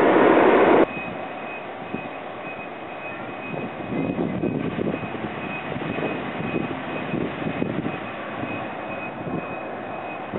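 Loud jet engine noise from a JAL Express Boeing 737 that cuts off abruptly under a second in. It gives way to the quieter, uneven sound of a distant airliner's jet engines as it rolls on the runway after landing, with a faint steady high whine.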